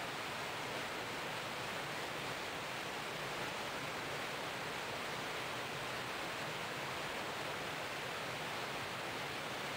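Steady rushing of water and air past a moving boat, an even hiss with no engine tone or other sounds standing out.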